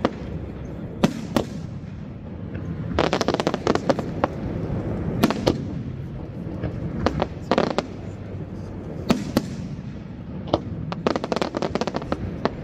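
Aerial firework shells bursting in a display: a series of sharp bangs, some single and some in quick runs of small pops, every second or two over a constant low rumble.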